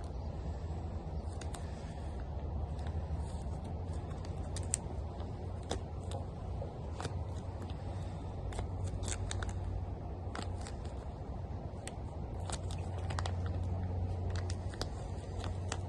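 Plastic sauce and seasoning packets handled and squeezed out, giving scattered small crinkles and clicks, over a steady low hum.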